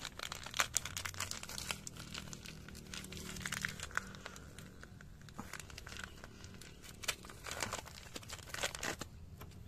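Plastic sachet of Gandasil foliar fertilizer being handled and torn open by hand: a run of quick crackling rustles that comes in spurts.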